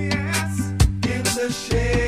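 Background music with a drum beat and a bass line, without singing.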